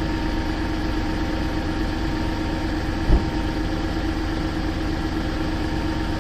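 Seat Ibiza 1.2 TDI three-cylinder diesel engine idling cold with a fast, even knock: the knock that this engine makes when cold. A single louder thump about three seconds in.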